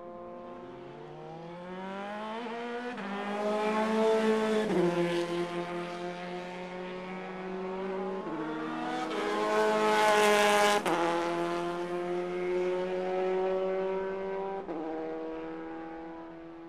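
Electric motors of Kyosho dNaNo 1/32-scale micro RC race cars whining as the cars lap. The pitch rises as they accelerate and drops sharply each time the throttle is released, with the whine loudest as cars pass close, about 4 and 10 seconds in.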